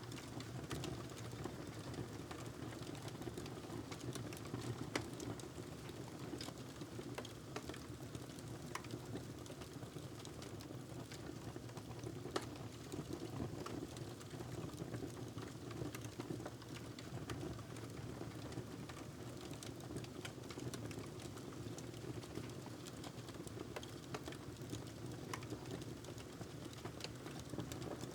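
Wood fire crackling in a fireplace: irregular sharp snaps and pops, a couple of them louder, over a steady low rumble of the flames.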